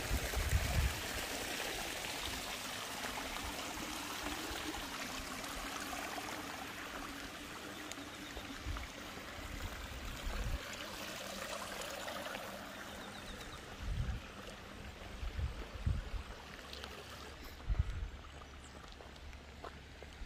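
Water running down a narrow stone-lined channel: a steady trickling rush that slowly grows fainter. A few low thumps come in the second half.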